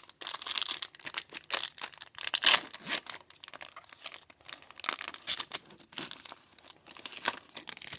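A foil trading-card pack being torn open and its wrapper crinkled: a busy run of irregular crackles and rips.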